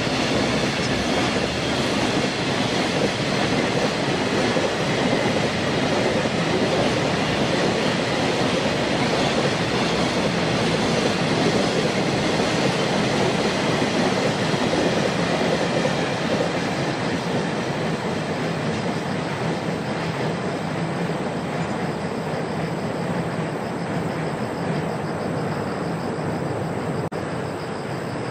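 Long freight train of container wagons rolling past, a steady noise of steel wheels on rail that eases off over the last ten seconds as the end of the train goes by.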